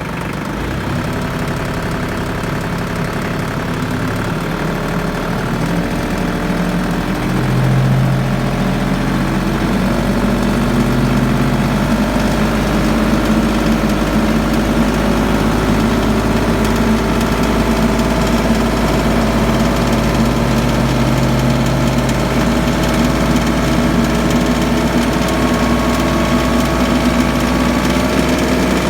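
Branson F42Rn compact tractor's diesel engine running steadily at idle.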